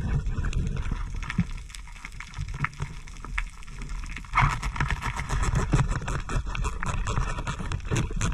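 Underwater sound on a rocky reef: a dense crackle of clicks over a low rumble of moving water, thicker and louder from about four seconds in.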